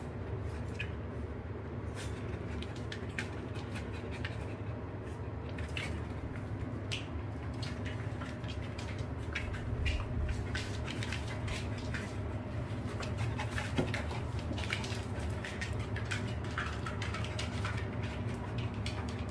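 Dogs' claws ticking and tapping on a vinyl floor as a puppy and two small dogs walk about and sniff each other, in many short, irregular clicks over a steady low hum.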